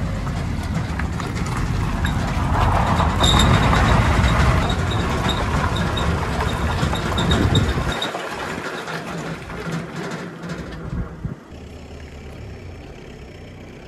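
Car towing a loaded box trailer on a road: a steady rumble of road and wind noise with light regular ticking in the middle. The noise drops away about eight seconds in and is much quieter near the end.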